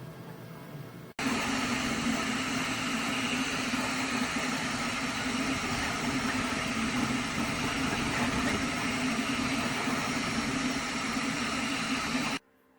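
Flashforge Adventurer 5M 3D printer running: a loud, steady mechanical whir with a low hum that starts abruptly about a second in and cuts off abruptly near the end.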